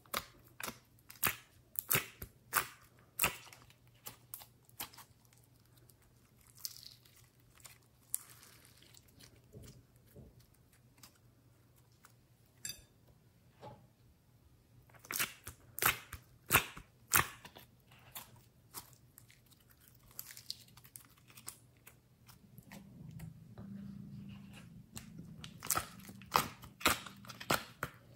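Glossy slime being poked, squeezed and pulled apart by fingers, giving off sharp, irregular pops and clicks in clusters, with a few softer squishing and rustling passages in between.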